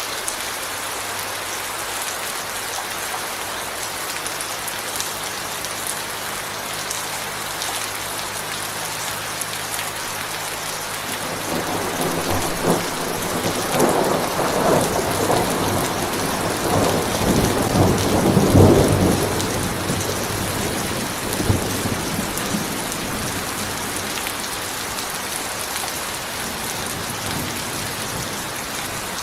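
Steady rain falling, with a rolling thunder rumble that builds from about eleven seconds in, peaks a few seconds later and fades out over about ten seconds.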